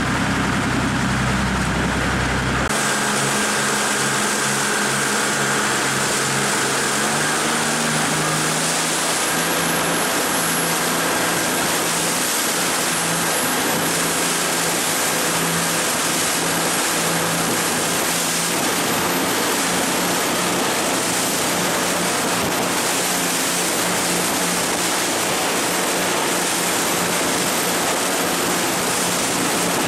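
Jet boat running through whitewater rapids: a loud, steady rush of churning water and spray over the steady hum of the boat's engine. About three seconds in the sound changes abruptly as the deep rumble drops away.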